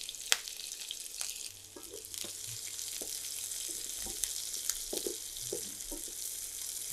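Sliced onions sizzling in a little hot oil in a nonstick frying pan, with scattered light clicks and scrapes from a wooden spatula stirring them.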